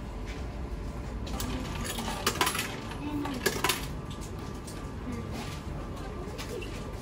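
Coins clinking as they are fed into a drink vending machine's coin slot: a run of sharp metallic clinks between about one and four seconds in.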